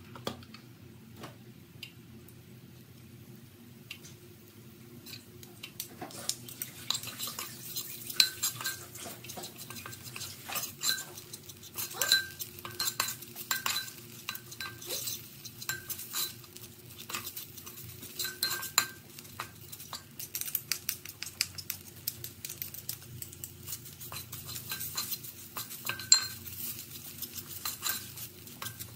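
A metal spatula scraping and clinking against a pot while stirring spice paste in it. The strokes are sparse at first and come thick and irregular from about six seconds in, some with a short metallic ring.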